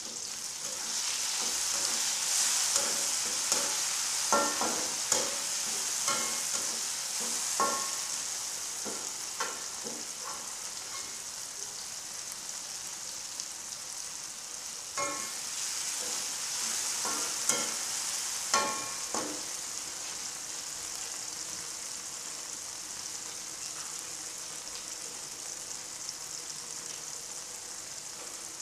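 Tomatoes and garlic sizzling in hot oil in an aluminium wok, with a metal spatula clinking and scraping against the pan in two spells of stirring. The sizzle is softer in the last third.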